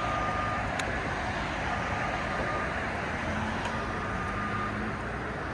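Engine of a JLG boom lift running steadily, with its motion alarm sounding in long, high beeps about every two seconds while the lift moves.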